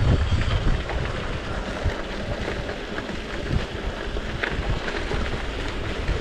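Bicycle tyres rolling over a packed dirt and gravel trail, a steady crackling hiss with scattered small clicks, with wind on the microphone that is heavier in the first half-second.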